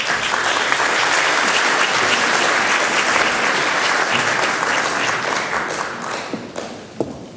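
Audience applauding, a dense steady clapping that fades away over the last second or two.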